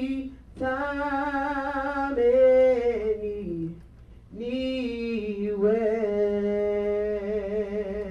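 A solo voice singing long held notes with vibrato in three phrases, with short breaths between them; the middle phrase slides down in pitch and the last settles into a long held lower note.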